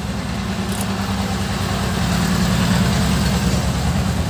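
A motor vehicle's engine running, a steady low rumble that grows a little louder about two seconds in.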